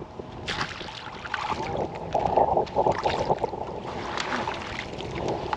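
Hooked bass splashing at the surface beside the boat and being scooped up in a landing net, with irregular sloshing and splashes that start about half a second in and are loudest around two to three seconds in.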